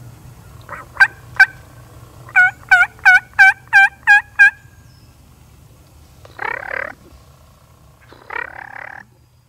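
Wild turkey calls: two short, sharp notes, then a run of about eight evenly spaced yelps, followed by two gobbles from a tom about two seconds apart.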